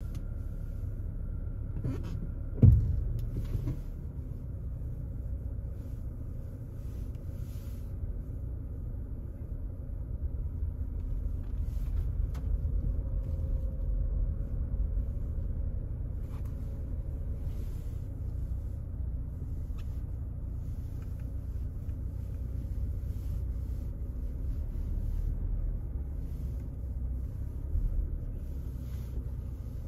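Inside a car's cabin while driving slowly on a snow-covered road: a steady low rumble of engine and tyres rolling on snow. A single sharp knock comes about three seconds in, with a few faint clicks later.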